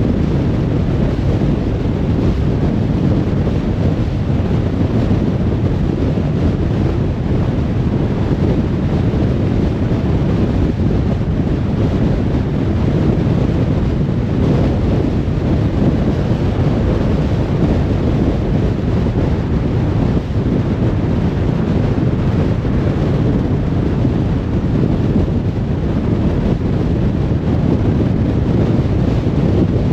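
Steady road noise of a car cruising on a motorway: a constant low rumble of tyres and engine with a fainter hiss of wind over it, unchanging throughout.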